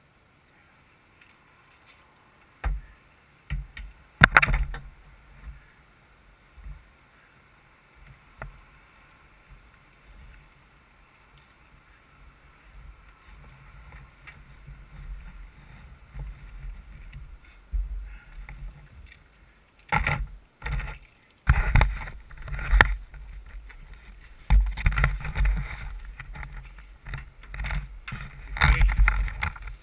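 Handling noise on a helmet-mounted camera: a few sharp knocks in the first few seconds, then from about twenty seconds in, repeated bumping and rustling as the helmet is picked up and carried.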